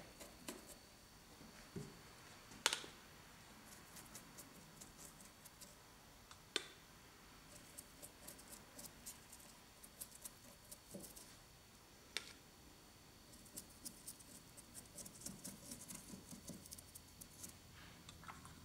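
Small paintbrush dabbing and scratching against a model rock face, a faint quick patter of bristles that gets busier in the second half, with a few sharper single taps along the way.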